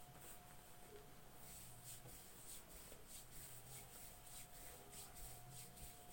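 Near silence with faint rhythmic rubbing, about three strokes a second: hands massaging skin. A thin steady hum lies underneath.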